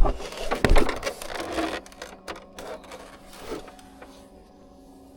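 Hard knocks and clattering of car dashboard parts being handled for about two seconds, then a faint steady hum.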